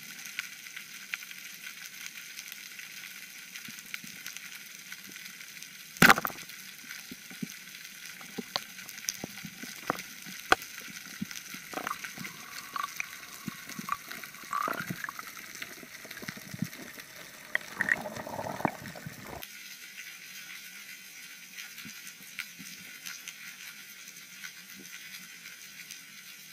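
Underwater ambience: a steady crackling hiss with scattered sharp clicks, and one loud sharp crack about six seconds in.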